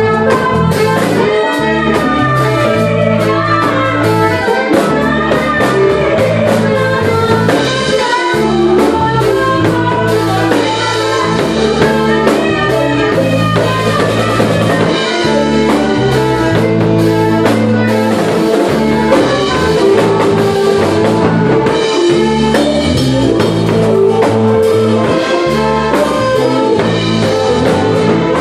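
A live jazz fusion band playing continuously, with drum kit and a moving bass line under sustained melody notes.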